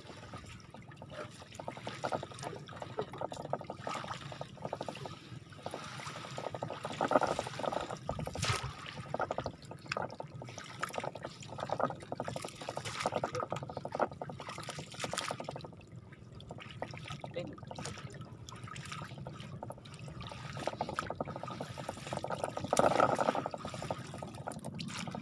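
Lake water splashing, sloshing and dripping as a long-handled scoop net is dipped and lifted through a fish-cage net beside a wooden boat, scooping out small bait fish. The splashes come irregularly, with a few louder ones, the loudest near the end.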